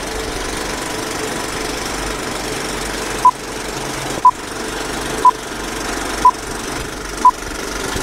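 Old-film countdown sound effect: a steady mechanical film-projector rattle, with a short high beep once a second for five beeps from about three seconds in.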